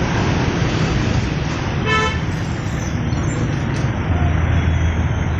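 Street traffic with engines idling and running in a steady low rumble, and a short vehicle horn toot about two seconds in. A nearby engine's rumble grows louder about four seconds in.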